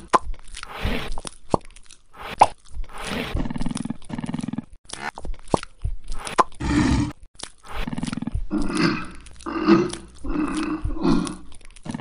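About a dozen short monster growls and roars in quick succession, voicing a toy kaiju, with a few sharp clicks among them.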